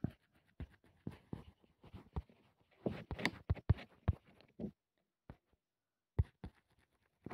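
Stylus tapping and scraping on a tablet screen while writing by hand: a quiet run of short, irregular clicks and taps, thickest about three to four and a half seconds in.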